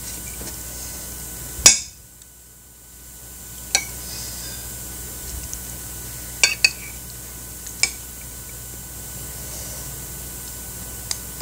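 Metal spoon clinking against a ceramic plate and soup bowl while mixing soup into rice: about six sharp clinks spread out, the loudest about a second and a half in, over a steady low hiss.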